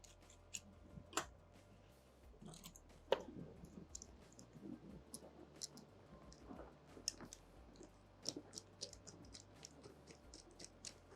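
Faint, scattered small clicks and light handling noise of banding strap parts being threaded and linked together by hand, with a sharper click about three seconds in.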